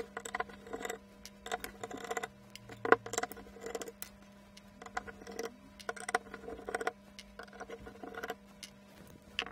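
Screwdriver turning small screws out of a machined aluminium camera housing: a scattered run of faint metal clicks and scrapes, with one sharper click about three seconds in.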